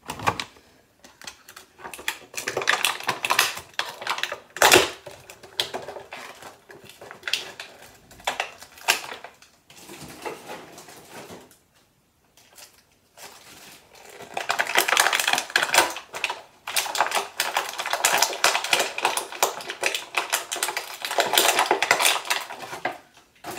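Hard plastic clattering, clicking and crinkling as a Bakugan toy and its packaging are handled, with one sharp snap about five seconds in. The clatter comes in two long stretches with a lull around the middle.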